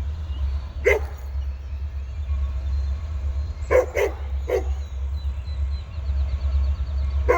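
A dog barking in short single barks, about five in all with a quick pair in the middle, over a steady low rumble.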